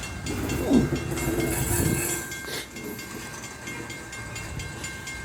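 A loaded coal train rolling past on the rails: a steady rumble and clatter of the cars, louder in the first two seconds, with thin steady high-pitched tones over it.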